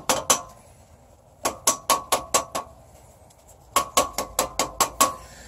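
A paper lawnmower air filter tapped against a hard surface to knock the dirt out of it: sharp taps, two at the start, then two quick runs of about six or seven taps each.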